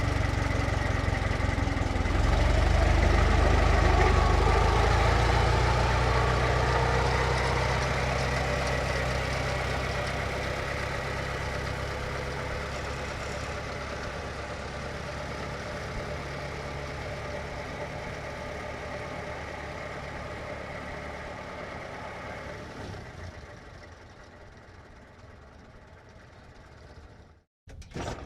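1924 Ford Model T stake bed pickup's four-cylinder side-valve engine running as the truck reverses and pulls away. It gets louder about two seconds in, then fades steadily as the truck moves off, and is left faint and idling before it stops near the end.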